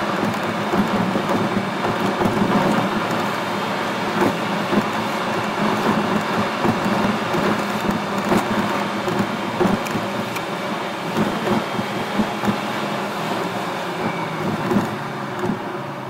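Road and engine noise of a car driving, heard inside the cabin, with frequent small ticks and knocks throughout; it eases off near the end as the car slows for traffic lights.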